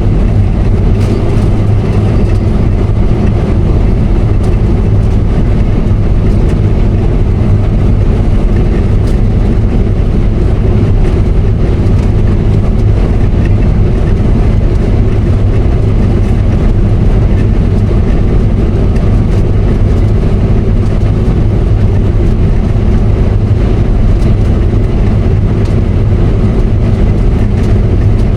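Case IH combine running steadily while cutting wheat: an even, unbroken low engine and machine drone.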